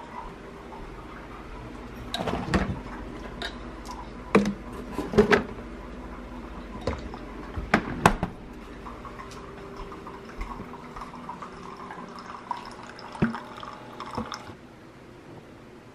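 Kitchen handling sounds while making coffee: a series of sharp knocks and clicks as a refrigerator door and a plastic coffee creamer bottle are handled, over a faint steady hum. Liquid is heard being poured, and a hiss stops abruptly near the end.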